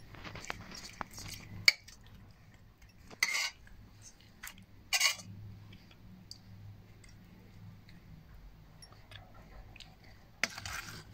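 Metal spoon clinking and scraping against a steel tray and bowl while spreading thick spice paste over whole fish. There is a sharp clink a little under two seconds in, then a few short scrapes several seconds apart.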